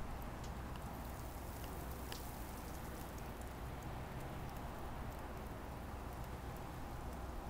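Steady blizzard noise of wind and falling snow, with a low rumble and scattered faint ticks.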